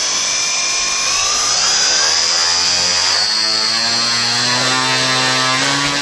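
Large Turnigy CA 120-70 brushless outrunner motor spinning a 30x10 propeller hard on a static test stand. A loud, steady high electric whine mixes with the propeller's whir, and the low hum climbs slightly in the second half.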